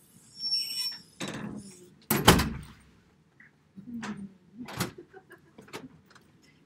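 A door opening and closing, with a loud thud about two seconds in, then a few lighter clicks and knocks.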